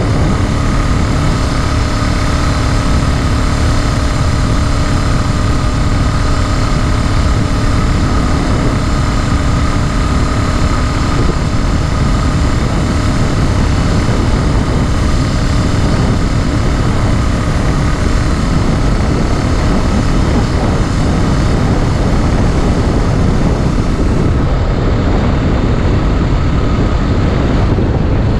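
Small 49cc four-stroke engine of a motorized beach cruiser running steadily at a leisurely cruising pace. It is a new engine being broken in.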